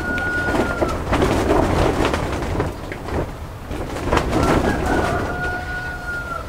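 Tomato plants' leaves and stems rustling and crackling as tomatoes are picked by hand. A rooster crows twice: a long, level crow ending about a second in, and another starting at about four and a half seconds.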